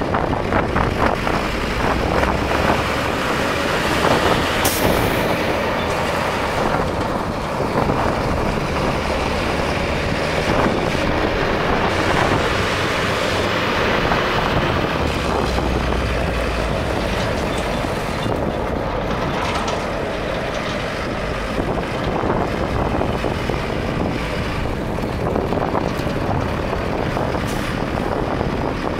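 Freightliner FL80 dump truck driving slowly with its diesel engine running steadily and tyres rolling over gravel. A brief sharp click sounds about five seconds in.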